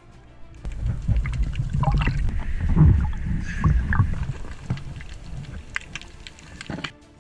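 Sea water splashing and sloshing around the camera at the surface, with a low rumble of water and wind buffeting the microphone and a few sharp knocks; it starts about a second in and cuts off suddenly near the end.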